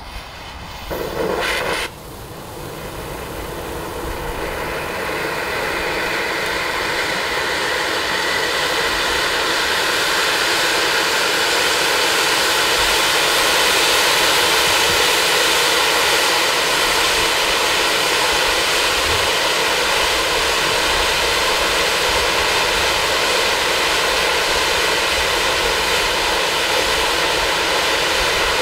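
Black Cat Titanium Fountain firework burning. A short burst about a second in is followed by a steady rushing hiss of spraying sparks, which builds over the first several seconds and then holds.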